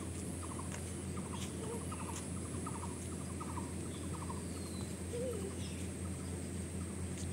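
Quiet outdoor ambience with an unseen small animal calling: short trills of rapid ticks, repeated about twice a second for the first four seconds or so, then stopping.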